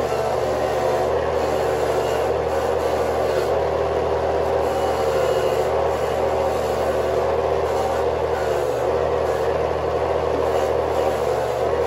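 Motorized cassava grater running steadily with a constant hum as peeled cassava roots are pushed by hand into its grating drum and shredded.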